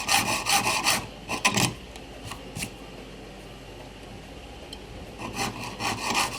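Jeweller's piercing saw with a very fine blade cutting brass plate in quick, even strokes, about four a second. The sawing stops for about three seconds in the middle and starts again near the end.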